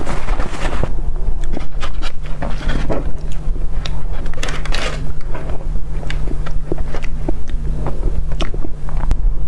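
Close-miked chewing and wet mouth clicks from eating soft chocolate mille crêpe cake, over a steady low hum.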